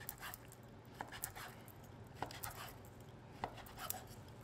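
Kitchen knife cutting a thick slice of ham into strips on a cutting board: faint, separate taps of the blade striking the board, roughly one or two a second.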